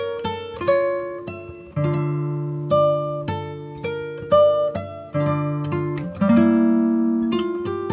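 Background music on acoustic guitar: picked single notes that ring and die away, with fuller strummed chords about two, five and six seconds in.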